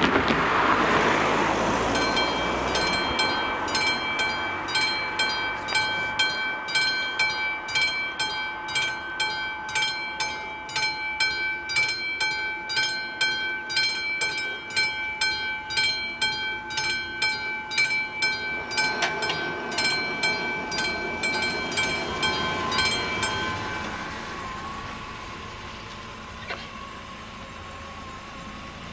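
Level-crossing warning bell of an AŽD 71 signal ringing in a steady, even rhythm of strikes, then stopping about three-quarters of the way through once the barriers are down. A car passes at the start, and a car engine idles at the end.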